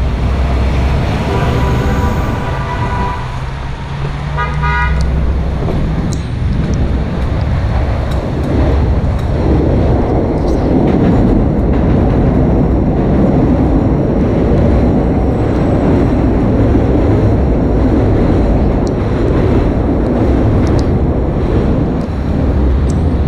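Street traffic heard from a bicycle: a vehicle horn sounds for a couple of seconds near the start, then a quick run of short horn beeps. From about nine seconds in, the steady rush of traffic grows louder and stays loud.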